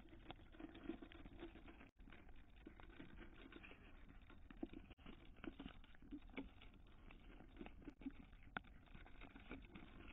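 Kittens eating dry kibble in a cat feeder: faint, irregular crunching and clicking, several small clicks a second.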